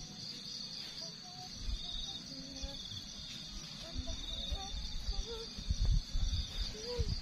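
Insects trilling in a steady, high-pitched, pulsing chorus, with irregular low thumps and rumbles that grow stronger in the second half.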